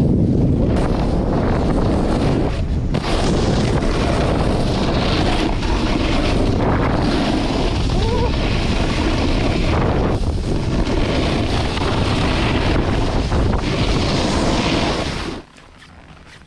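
Wind rushing over a handheld action camera's microphone as a snowboard slides and carves over groomed snow, a loud rushing noise that swells and dips with the turns. It cuts off abruptly about a second before the end, leaving much quieter surroundings.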